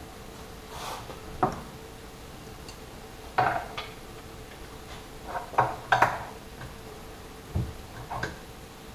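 Metal clinks and taps of a wrench on the drawbar at the top of a Sieg X2 mini mill's spindle, tightening it down on the tool holder: about eight short, irregular clinks spread over several seconds, loudest a little past three seconds in and around six seconds in. A faint steady hum runs underneath.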